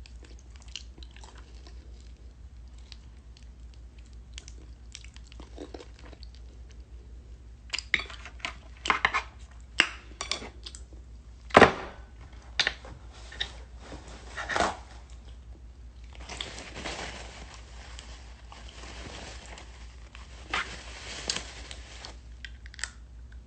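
A person eating a juicy mango close to the microphone: wet smacking, sucking and chewing mouth sounds in scattered bursts, with the loudest smack about halfway through.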